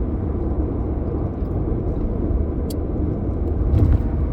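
Steady low rumble with a couple of faint clicks.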